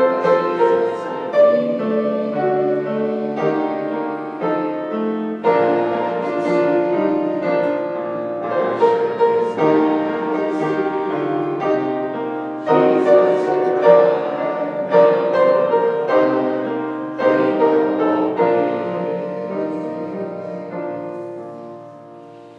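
Piano playing a slow piece in full chords, each new chord struck every second or two, dying away over the last few seconds.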